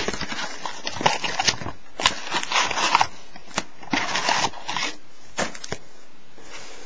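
Trading-card box and pack wrappers rustling and crinkling as they are handled, in a string of short bursts with a few sharp clicks, stopping near the end.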